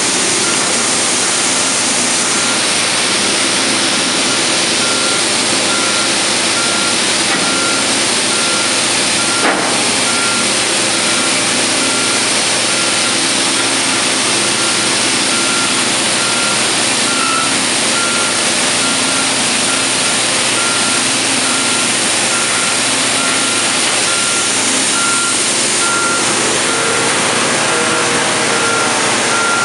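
Heavy diesel construction machinery running steadily in a loud, constant din, with a reversing alarm beeping in an even rhythm from a few seconds in. A single sharp knock about ten seconds in.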